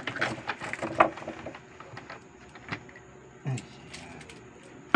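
Clicking and clattering of a plastic RC tank hull and its track being handled, with a sharp knock about a second in, a low thump as the hull is set down on the table a little after three seconds, and another sharp knock at the end.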